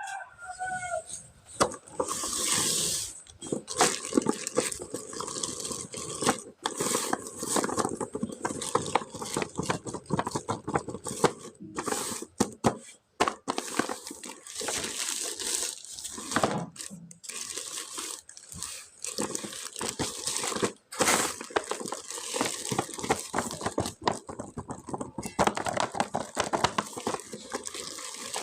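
Toy packaging being handled and opened: continuous crinkling and rustling with many small clicks and scrapes.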